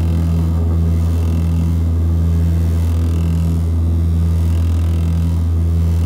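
Antonov An-24RV turboprop engines and propellers running with a steady, loud low drone, heard from inside the passenger cabin as the airliner rolls on the ground.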